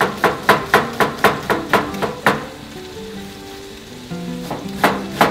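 Chef's knife chopping onion on a cutting board: quick, even knocks about four a second, pausing a little under halfway, then a few more strokes near the end.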